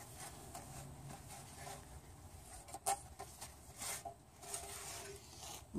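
Faint rubbing of a gloved hand and rag wiping the inside of an engine oil pan to get it oil free, with a few light clicks and knocks.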